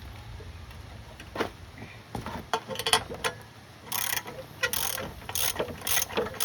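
Low steady hum, then from about a second and a half in a run of irregular, sharp mechanical clicks and short clatters, like metal parts or tools being handled.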